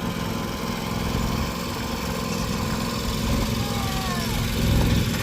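John Deere X350 lawn tractor engine running steadily as it moves off towing a train of kids' carts, getting a little louder near the end.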